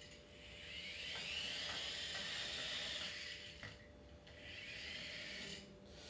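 Parrot Jumping Sumo minidrone's small electric wheel motors whining as it drives: one longer run that rises and then falls in pitch, and after a short pause a shorter second run.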